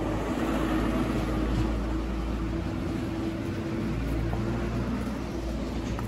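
A motor vehicle's engine running steadily, with a low rumble and a faint steady hum.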